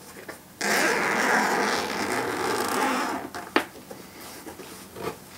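Zipper of a hard-shell carry case being pulled open in one steady run of about two and a half seconds, followed by a single sharp click.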